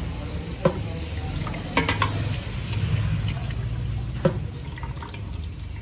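Steel ladle pouring oil and broth into a ceramic bowl, with a few sharp clinks of metal on crockery and pot, over a steady low hum.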